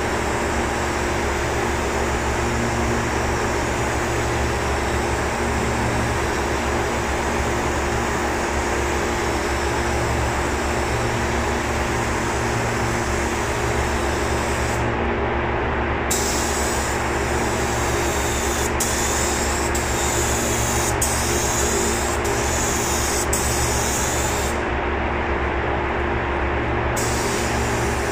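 Compressed-air paint spray gun hissing steadily as primer is sprayed onto a helicopter's aluminium underside, over a steady low machine drone. The high hiss cuts out briefly twice.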